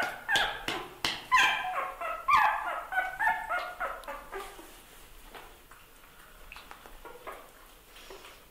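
A quick series of short, high animal cries, each falling in pitch, several a second and loud for about four seconds, then thinning to a few faint ones.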